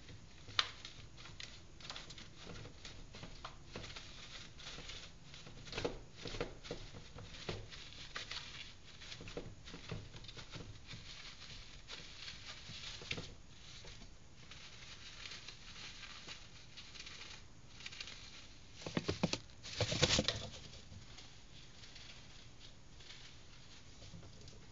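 A rodent scrabbling and rustling as it gathers nest material: a string of light scratches and patters, with a louder burst of scratching about three-quarters of the way through.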